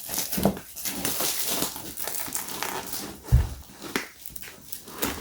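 Plastic packaging being handled and pulled out of a box, crinkling irregularly, with a knock near the start and a heavier thump a little past three seconds in.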